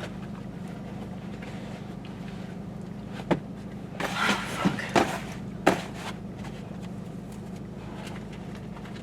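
Steady low hum of a car idling, with a few short knocks and rustles of handling between about three and six seconds in.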